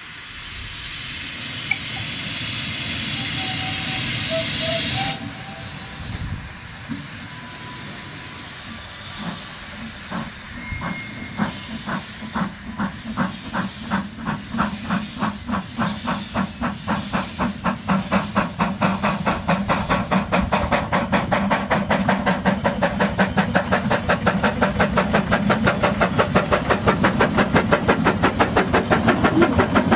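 Narrow gauge steam locomotive getting a train under way: a loud hiss of steam for about the first five seconds, then chimney exhaust beats that start slow and grow quicker and louder as it pulls its carriages closer.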